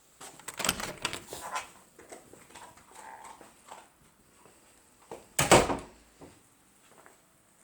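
A dog gnawing on a bone: a run of short crunching, clicking strokes, then scattered fainter chewing ticks. A single loud, brief scraping noise comes about five and a half seconds in.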